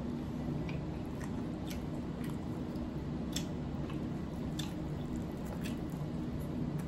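Wet eating sounds: a salsa-covered steak squishing as fingers pull pieces off it, with chewing and scattered sharp wet clicks, over a steady low hum.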